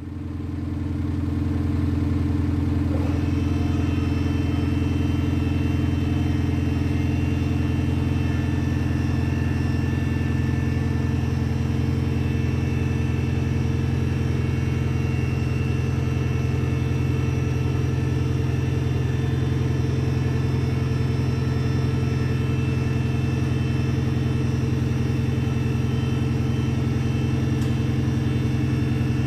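Kufatec Soundbooster Pro sound generator on a Smart fortwo 451 mhd playing a simulated V8 engine sound at a steady idle. It fades in over the first two seconds, and fainter higher tones join about three seconds in.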